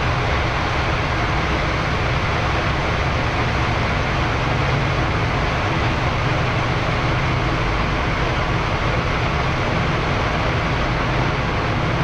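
Boeing 787-10 at takeoff thrust on the takeoff roll, heard from the flight deck: a steady, even rush of engine and airflow noise over a deep low rumble from the runway and landing gear.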